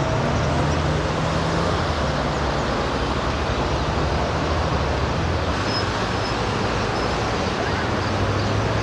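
Steady roar of city traffic with a low engine hum, mixed with the dense massed chatter of a large flock of common starlings.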